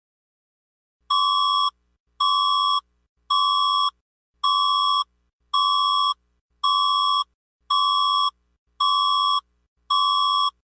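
Electronic alert tone beeping nine times at one steady pitch, each beep a little under a second long, about one a second: the attention signal of a mock emergency alert broadcast.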